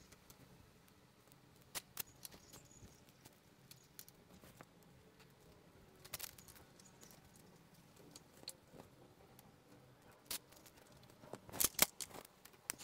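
Plastic zip ties being handled and looped around a bike frame and cable: faint scattered clicks and light taps, with a quick run of louder clicks near the end.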